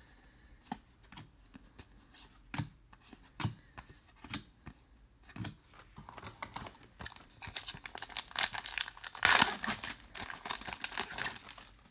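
Light taps of trading cards being handled and set down, then a foil trading-card pack torn open and its wrapper crinkling, loudest about nine seconds in.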